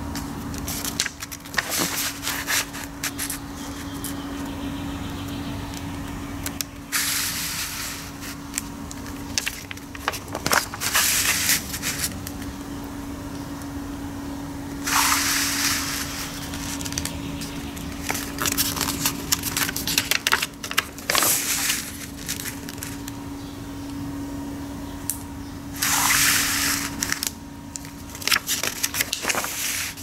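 Paper pages of a cassette deck's instruction manual being handled and turned, with rustling and crinkling and three louder swishes as a page turns over. A steady low hum runs underneath.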